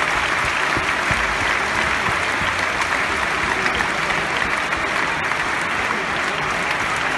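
Large theatre audience applauding steadily, a continuous even wash of clapping.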